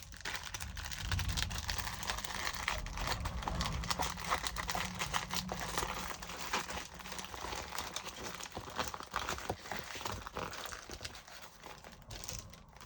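Plastic packaging of diamond painting kits crinkling and rustling as it is handled, with irregular crackles throughout.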